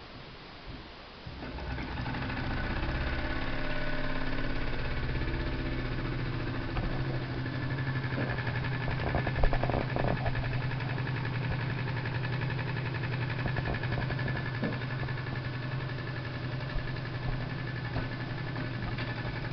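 Jensen #60 toy steam engine, its drive shaft running on ball bearings, starting up about a second in and then running at a steady speed with an even hum and fast regular beat. A few sharp knocks come around the middle.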